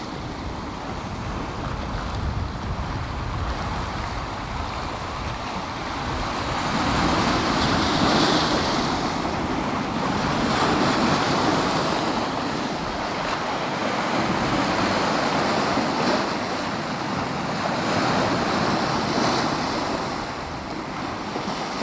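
Sea waves breaking and washing in among boulders and cobbles on a rocky shore, the surf swelling and easing every few seconds.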